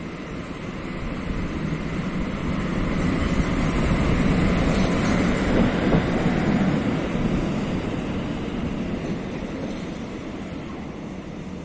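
Electric locomotive running light, without carriages, passing close by on the track: a wheel-and-rail rumble that swells to its loudest about halfway through, with a few faint high squeaks, then fades as it moves away.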